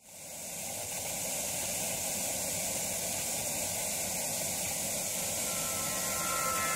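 Steady static hiss like a detuned television, fading in over the first second; faint musical tones begin to come in near the end.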